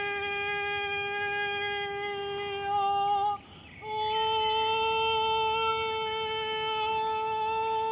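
A woman's voice holding a long, steady wordless sung note, breaking off for a breath about three and a half seconds in, then holding a second, slightly higher note. Vocal toning in a sound-channeling voice practice.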